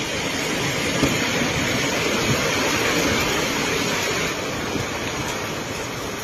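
Typhoon wind and rain as a steady, loud rushing noise with no break.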